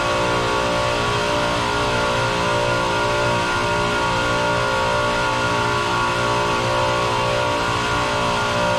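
Steady, loud drone of running chiller plant machinery, a constant hum carrying several unchanging tones under an even rushing noise.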